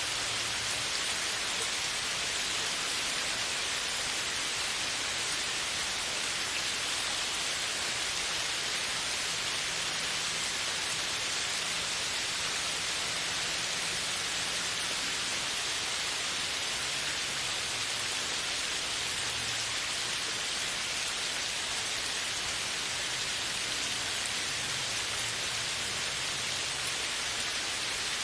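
Steady downpour of rain falling on a forest's leafy canopy, an even, unbroken hiss at constant strength.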